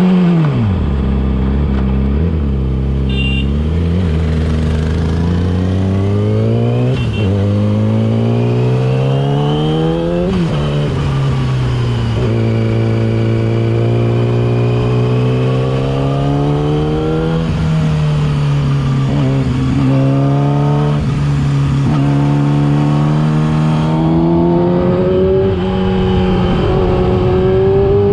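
Yamaha R6's inline-four engine through a LeoVince aftermarket exhaust, on the move: the note drops as it slows at the start, then climbs in three rising pulls, each cut off by a sudden drop as it shifts up. It then holds a steady cruise, dips and picks up again a couple of times, and slowly rises near the end.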